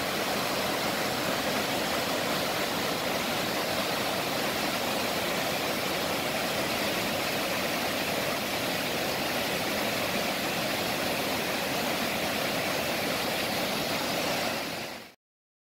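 High Falls on the Towaliga River pouring over its rock ledges at high, muddy storm flow: a steady, even rush of falling water. It cuts off abruptly near the end.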